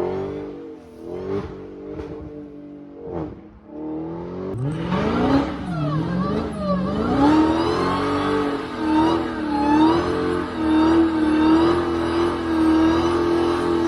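Supercharged V8 of a Dodge Charger Hellcat revving: a few short blips over the first few seconds, then a long run with the pitch rising and falling, settling into a steady held pitch for the last few seconds.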